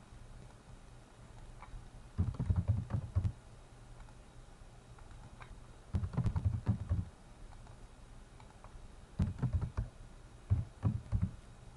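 Typing on a computer keyboard: four short bursts of keystrokes a few seconds apart, over a faint steady low hum.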